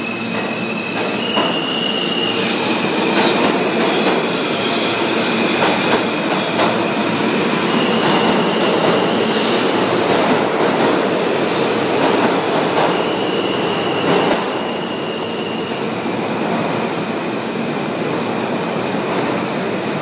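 Subway train running through the station: a loud steady rumble of wheels on rails, with high-pitched wheel squeals that come and go and a few sharp clicks. It eases off slightly about two-thirds of the way through.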